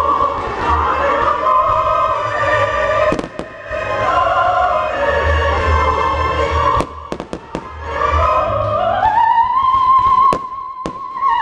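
Operatic singing with music runs continuously, rising near the end to a long held high note. Firework bangs break through it: one a little after three seconds, a quick run of about four near seven seconds, and a few more near the end.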